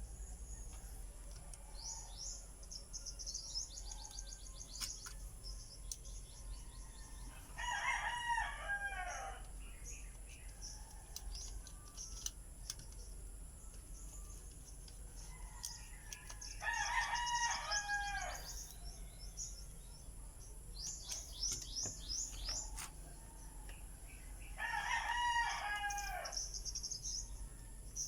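A rooster crows three times, each crow lasting about two seconds and spaced roughly eight seconds apart, over quick high-pitched chirping.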